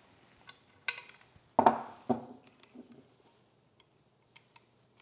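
Metal clicks and knocks of a router plane's cutter being slid into its square post and the plane being handled, as the fit of the cutter is checked. There is a sharp click about a second in and a louder knock just after, followed by a few faint ticks.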